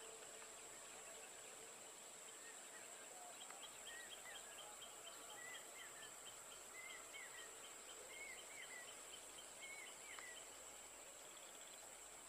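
Faint open-country ambience: a steady high-pitched insect drone, with a bird calling in short paired chirps every second or so through the middle of the stretch, over a run of quick faint ticks.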